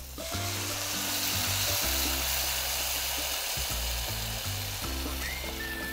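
Thin coconut milk poured into a hot pan of tempered carrots and cashews. It sizzles loudly at once, then slowly eases off. Background music plays underneath.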